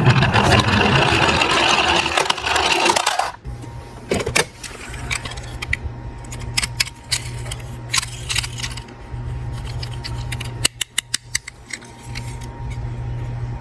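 Small diecast metal toy cars clattering and clinking against one another and against hard surfaces: a dense rattle for the first three seconds, then scattered clicks, with a quick run of clicks near the end, over a steady low hum.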